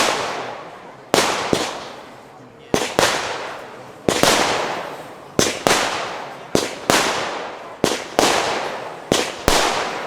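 Funke Pink Crossette firework cake firing shot after shot: sharp bangs about one to two a second, each trailing off in a fading crackling hiss.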